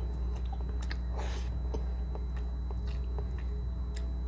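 Close-miked mouth chewing a mouthful of milkfish and rice, with small wet mouth clicks and a short breathy smack about a second in. A steady low hum runs underneath.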